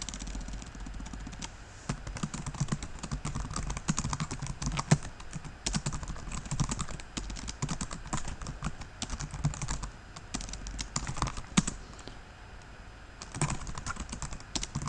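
Typing on a computer keyboard: quick, irregular keystrokes, with a short lull about twelve seconds in before the typing resumes.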